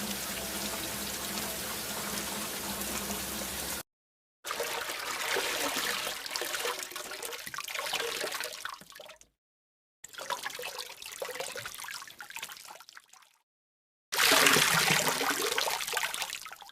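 A run of short water sound effects, running and trickling water, in four separate clips cut apart by brief dead silences; the last clip, about two thirds through, is the loudest.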